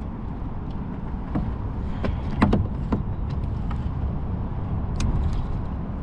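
A small bass being swung up out of the lake on the line, with a few short splashes and clicks, the loudest about two and a half seconds in, over a steady low wind rumble on the microphone.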